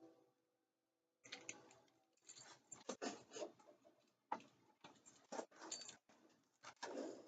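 Short, irregular clicks and scrapes of hand work on an electrical outlet: a screwdriver on its brass terminal screw and the wire being handled. They start about a second in.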